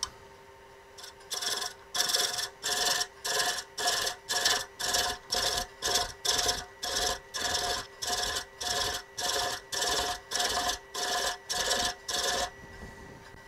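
Wood lathe at slow speed with a thread chaser being swept repeatedly across a spinning maple spigot to cut an external thread: an even run of short scraping strokes, about two a second, over a faint steady hum from the lathe. The strokes start about a second in and stop near the end.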